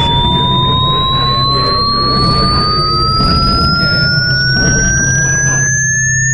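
Electronic sine-tone sweep rising steadily, nearly an octave over a few seconds, with a fainter tone climbing alongside it two octaves higher. It sits over a dense, noisy industrial drone with a steady low hum.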